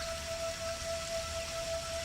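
Steady rain mixed with a single held musical note that sounds unbroken throughout, in a new-age relaxation soundscape.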